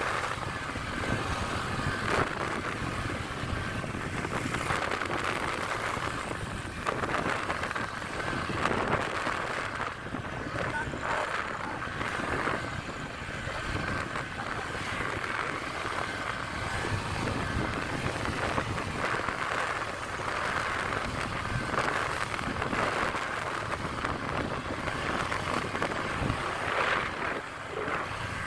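Steady wind rush on the microphone and road noise from a Honda Click 125i scooter riding at speed.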